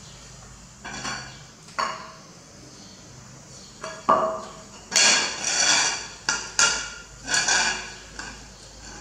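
A plate clattering, knocking and rattling against a tiled floor as a baby monkey handles it. A few separate knocks come first, then a busier run of clatters from about five seconds in.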